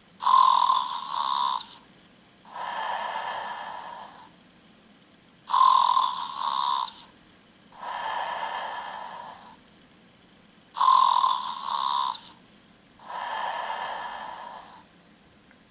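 Snoring stuffed toy moose playing its recorded snore on a loop: a loud, fluttering snore followed by a softer, longer breath, the pair repeating exactly about every five seconds, three times over.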